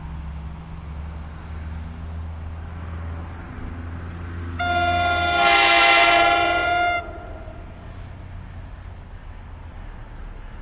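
A train horn sounds one blast of about two and a half seconds, several pitches at once, over the steady low hum of a train. After the horn a lighter steady rolling noise continues.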